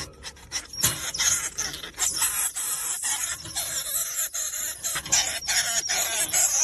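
Two small white pets scuffling on a wire cage floor: squeals over a hissing, chattering noise, with many sharp scattered clicks as they scrabble on the metal bars.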